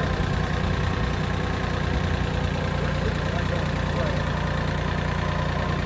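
Bobcat compact tractor's engine running steadily at idle.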